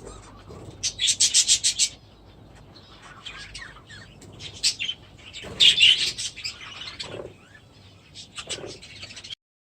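A budgerigar flock chattering, in bursts of rapid high chirps. The loudest bursts come about a second in and again around six seconds, and the sound cuts off suddenly near the end.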